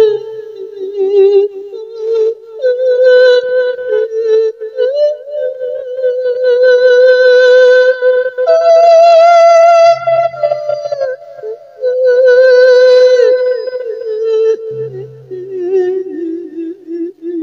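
A single voice sings long, wavering held notes of a Thai Isan-style mourning verse that invites the spirit of the dead. The melody moves slowly, with a step up in pitch about halfway through.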